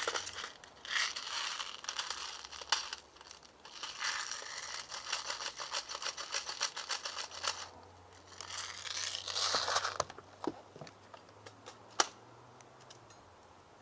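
Rattling, scraping and sharp clicks from handling the Umarex CO2 airsoft Uzi: two long stretches of dense rattling, scattered clicks, and one loud sharp click about twelve seconds in.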